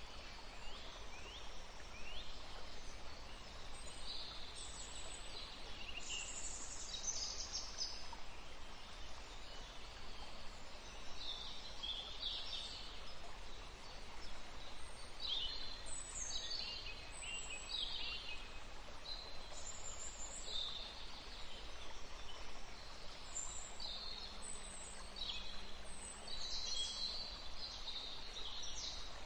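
Birds chirping and calling: many short, high-pitched calls scattered throughout, over a steady hiss of background noise.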